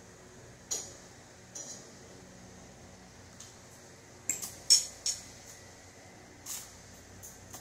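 A metal eating utensil clinking and scraping against a bowl while a child eats: a handful of short, sharp clinks, with the loudest cluster of three or four about halfway through.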